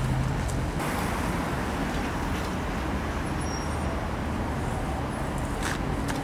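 Street traffic noise: a steady low engine hum under a wash of road noise.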